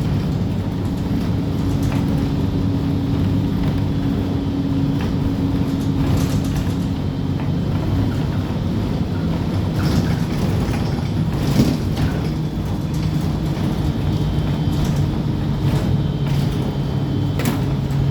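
Steady low drone of an engine, with a few faint clicks.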